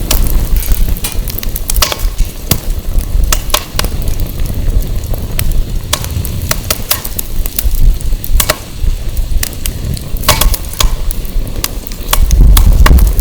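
Burning firewood crackling and popping in irregular sharp snaps, over a low rumble of wind on the microphone that swells up again near the end.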